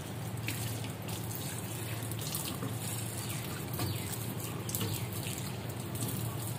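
Kitchen tap running steadily into a stainless steel sink, water splashing over hands and the drain strainer as the basin is rinsed.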